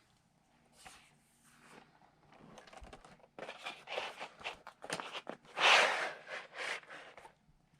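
Rustling and crinkling as a paper calendar and its wrapping are handled and opened. The bursts come irregularly from about halfway in, and the loudest one is near the end.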